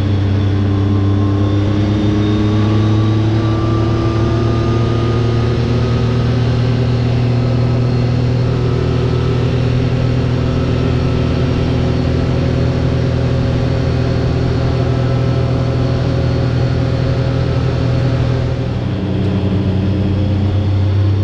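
Side-by-side UTV's engine running steadily at cruising speed, its pitch creeping slowly up, with a brief dip in level near the end.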